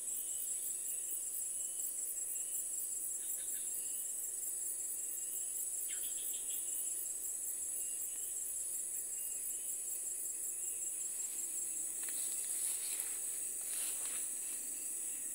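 Insects calling in a steady high chorus that pulses rapidly, with a few faint clicks near the end.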